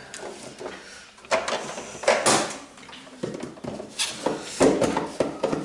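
Cardboard box and packing being handled and pulled apart: a run of scrapes and rustles, loudest about two seconds in and again near the end.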